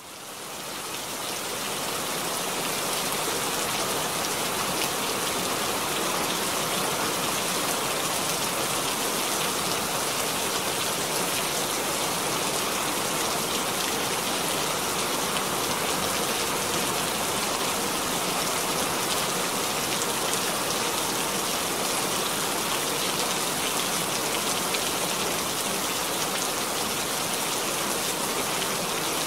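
Steady rain falling: a dense, even hiss with a fine patter of drops. It fades in over the first couple of seconds.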